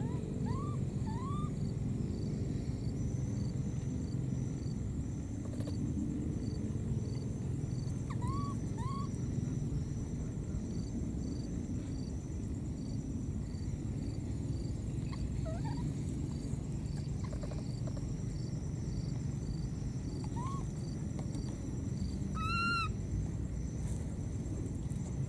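Baby macaque giving short rising calls now and then, often in pairs, with one louder piercing call about three-quarters of the way through, over a steady low background rumble.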